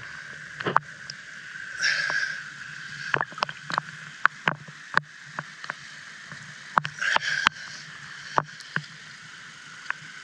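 Water splashing and lapping against a camera held at the waterline by a swimmer. Many sharp drip-like clicks are heard, with two louder splashy washes, about two seconds in and again about seven seconds in.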